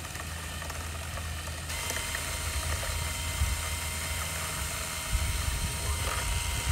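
A drill-driven paddle mixer runs steadily in a bucket of water and powdered sulfur, a motor whir with the liquid churning. It gets a little louder about two seconds in.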